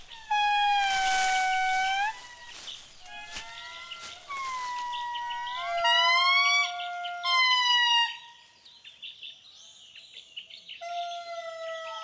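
Indri family singing their territorial song, the juveniles joining the adult male: a series of long, high, held notes that slide down and up in pitch, often two voices overlapping. The song dips to a lull about two-thirds of the way through, then one more long note comes in near the end.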